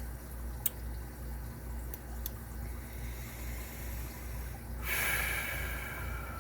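A few small sharp clicks from handling metal lock parts over a steady low hum, then a loud hiss about five seconds in, with a tone that slides downward as it fades.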